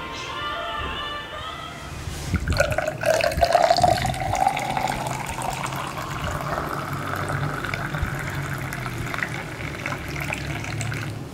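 Liquid poured from a bottle into a glazed ceramic horn-shaped cup. The pour starts about two seconds in with a splash, and the pouring tone rises steadily in pitch as the cup fills.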